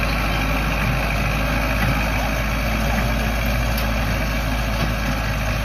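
Farm tractor's diesel engine running steadily under load as it pulls a cassava planter.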